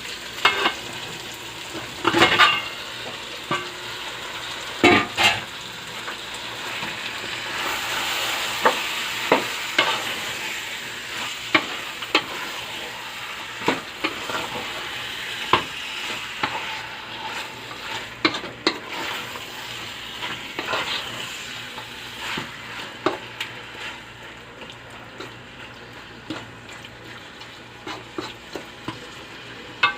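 Marinated chicken pieces sizzling in a pan of hot fried onion masala, with a spatula scraping and clacking against the pan as it is stirred. The sizzle swells about ten seconds in and dies down toward the end.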